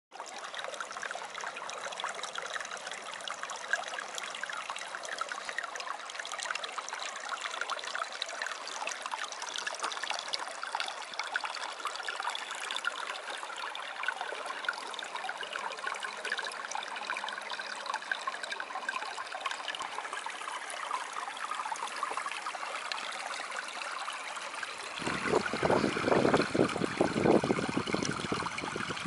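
Shallow water trickling and lapping among stones, a steady fine crackle and splash. About 25 seconds in it turns louder and deeper, with an uneven low rumble of wind buffeting the microphone over the choppy loch.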